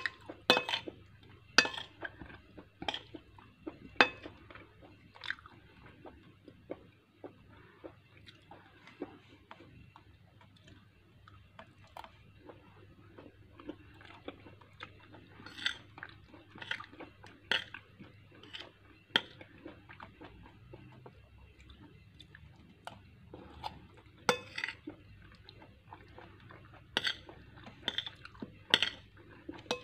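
Chewing and biting of cooked vegetables, with frequent short sharp clinks of a metal spoon against a glass bowl.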